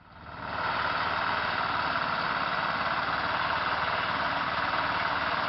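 An engine running steadily with a fast, even low pulsing, fading in over the first second.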